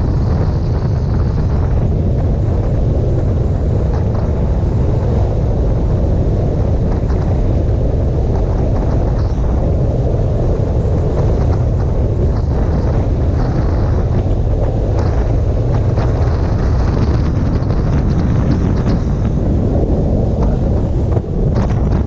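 Steady, loud wind rush over the microphone of a motorcycle-mounted camera at road speed, a continuous low rumble with the bike's running noise mixed in.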